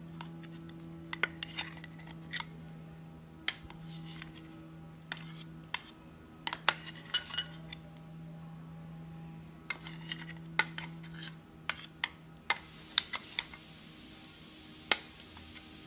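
A metal spoon scraping and tapping inside a stainless steel mixer-grinder jar, making irregular clinks and scrapes, over a low steady hum. A steady hiss comes in near the end.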